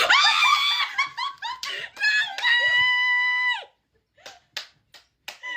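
A person's high-pitched excited squealing: a quick run of short squeals, then one long held shriek that cuts off. A few light taps follow.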